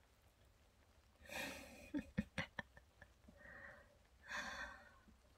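A woman breathing out softly close to the microphone, twice, with a few small mouth clicks between the breaths.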